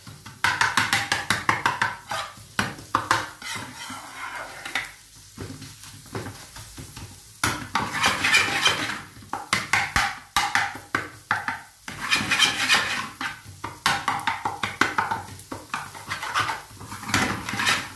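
A spatula stirring and scraping onions and ground spices as they fry in a frying pan, in several bouts of quick strokes with short pauses between. The onions are almost brown, and are being fried on to cook off the raw smell of the spices.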